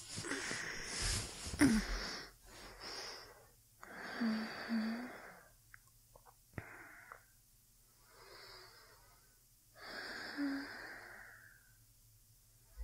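A woman breathing slowly and sleepily close to the microphone: drawn-out breaths a few seconds apart, some carrying a soft voiced sigh. A few faint clicks fall between the breaths.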